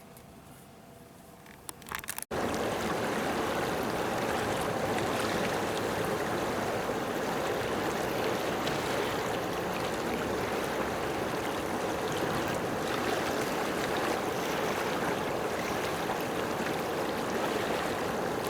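A few quiet seconds with faint clicks, then an abrupt cut to a loud, steady rushing noise that holds to the end.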